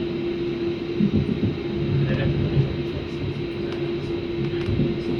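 Inside an electric suburban train carriage: a steady electrical hum with a constant mid-pitched tone and a faint high whine, over a low rumble.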